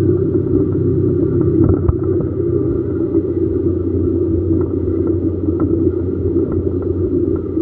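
Steady low rumble of a car driving, engine and tyre noise heard from inside the cabin, with a few faint clicks.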